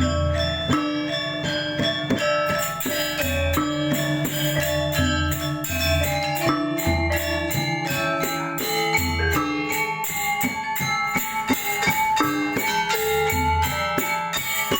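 Balinese gamelan ensemble playing: bronze metallophones ring quick interlocking notes over deep low gong tones that recur every second or two, with small cymbals clashing and rattling throughout.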